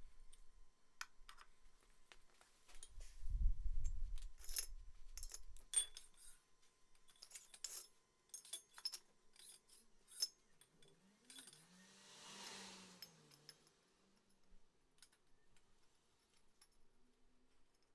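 Small hard parts handled and set down: a string of irregular clinks and taps, a low thump about three seconds in, and a short rushing noise about twelve seconds in.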